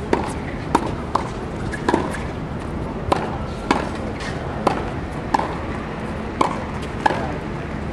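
Tennis balls struck with rackets in a practice rally: a series of sharp pops, about one a second, at an uneven pace.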